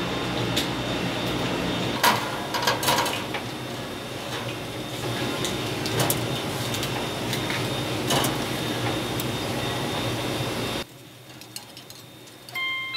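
Kitchen clatter: scattered knocks and clinks of utensils and pans over a steady machine hum. The sound cuts off abruptly near the end, and music begins.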